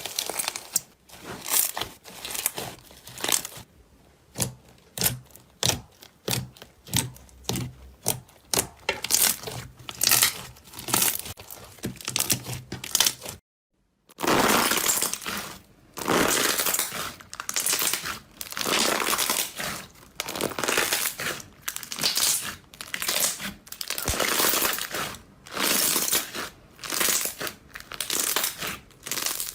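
Hands pressing and squeezing slime: a run of short, sharp squishes one after another. There is a sudden gap of silence about 13 seconds in, and the squishes come louder and faster after it.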